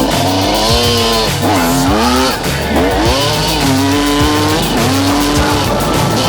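Motorcycle engine revving, its pitch sweeping down and up several times and then holding steady, over background music with a steady beat.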